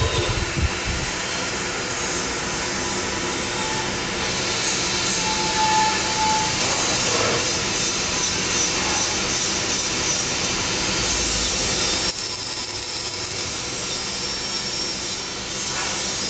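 Steady workshop machine noise: a continuous mechanical hum and hiss from running equipment, dropping a little in level about twelve seconds in.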